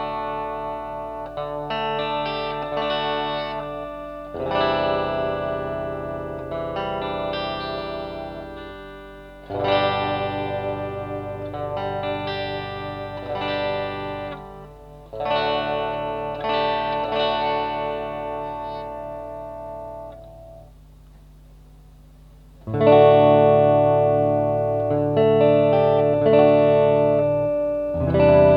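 Electric guitar from a DIY Telecaster-style kit build, played through effects with some distortion over a backing track. It plays sustained chords in phrases a few seconds long, with a brief lull about two-thirds of the way in, then louder playing.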